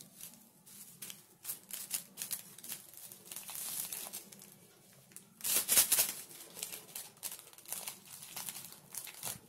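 A packet being handled, crinkling and rustling irregularly, with a louder rustle about halfway through.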